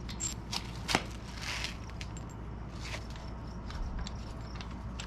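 Metal handlebar clamp parts and bolts being handled: a series of sharp clicks and clinks, the loudest about a second in, with a brief rustle.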